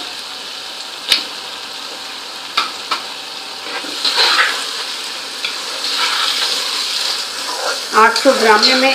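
Onions, garlic-ginger paste and cumin seeds sizzling in hot oil in a cooking pot while being stirred, with a few sharp knocks of the spoon against the pot early on. The sizzle grows louder from about four seconds in.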